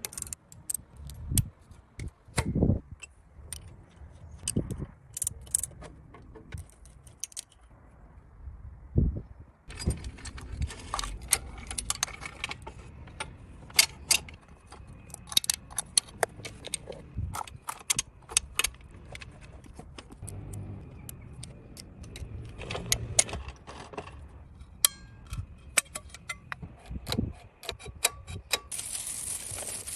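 Small metal parts and hand tools clinking, clicking and tapping irregularly during motorcycle restoration work, sparse at first and busier from about a third of the way in.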